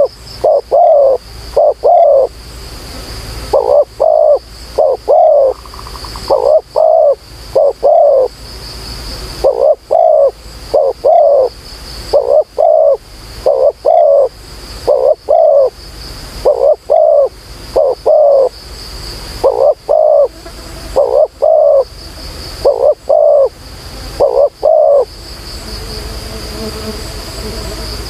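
Spotted dove cooing: loud three-note coos, one phrase every second or two, stopping a few seconds before the end. Insects buzz steadily at a high pitch throughout.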